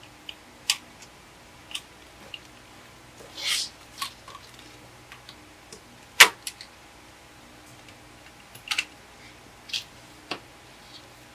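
Plastic LEGO Technic parts clicking and snapping as they are pressed together by hand: scattered single clicks, a brief scraping rub about three and a half seconds in, and one sharp, louder snap about six seconds in.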